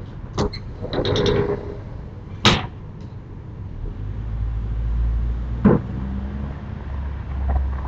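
A few sharp knocks and a short rattle, then a low rumble that swells in the second half and fades near the end.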